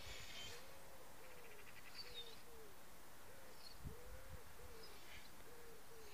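Dog whining: a string of short, faint rising-and-falling whimpers at irregular intervals. A small bird chirps faintly a couple of times.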